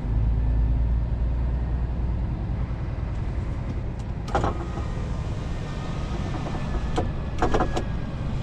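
Scania R-series truck's diesel engine running, heard from inside the cab. Its deep rumble steps up in level at the start and then holds steady, with a faint whine above it. Short clattering knocks come about four seconds in and again near the end.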